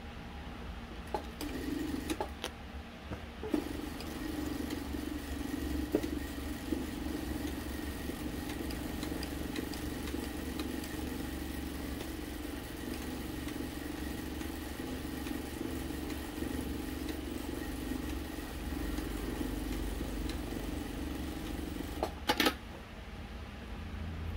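Industrial sewing machine running steadily as fabric is fed through, a continuous hum with a faint high whine. It starts about a second in and stops a couple of seconds before the end with a few sharp clicks.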